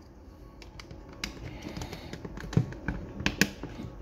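Irregular plastic clicks and knocks from handling a small network switch: an Ethernet plug pushed into a port and the switch's snap-on plastic port cover fitted back on, with the loudest clicks near the end.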